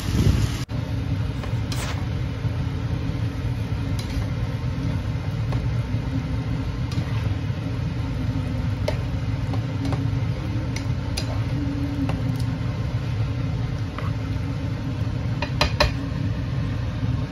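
A steady low rumble, with a spoon clinking against the cooking pan a few times; the clinks come thickest near the end.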